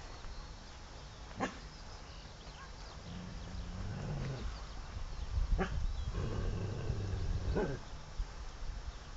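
English pointer giving three short barks, spaced a few seconds apart, over a low background rumble.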